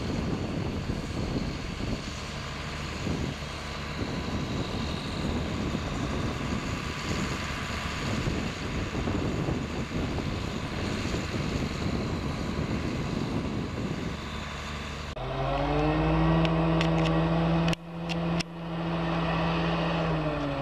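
Large John Deere four-wheel-drive tractor's diesel engine running steadily under a dense mechanical noise. About three-quarters through it cuts to a Western Star tanker truck's diesel engine, a steady droning hum with a clear pitch, broken by a couple of brief dropouts and clicks.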